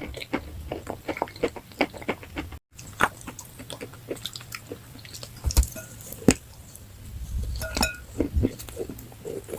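Close-miked biting and chewing of crunchy food: a run of sharp, irregular crunches, broken by a split-second gap about two and a half seconds in.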